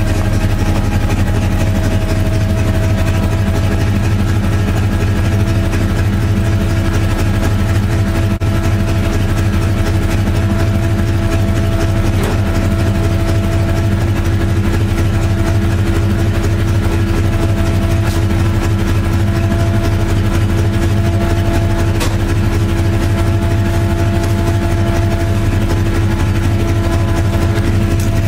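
Ford 5.0 (302) V8 with a T6 semi-truck turbo and blow-through carburettor, idling steadily while it warms up after a cold start.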